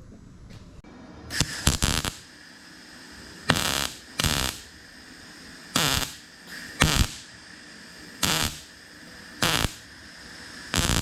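Welder firing about eight short crackling bursts, each well under a second and roughly a second apart, over a steady faint hum, filling holes in Jeep sheet metal.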